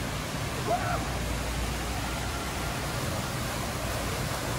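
Artificial rock waterfall running with a steady rush of water.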